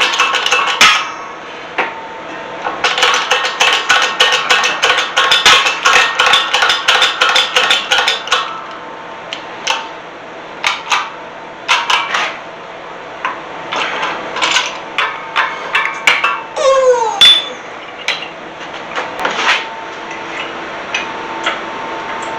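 Hammering on a steel bracket, metal on metal: a fast run of blows, then slower, separate strikes, with a short falling squeak partway through.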